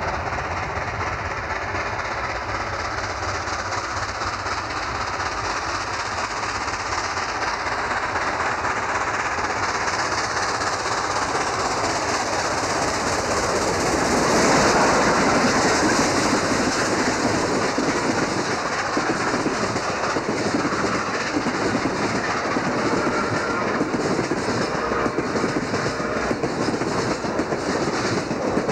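Nickel Plate Road 765, a 2-8-4 Berkshire steam locomotive, approaching under steam, its sound growing steadily louder until it passes about halfway through. After that its passenger coaches roll by with a steady clickety-clack of wheels over the rails.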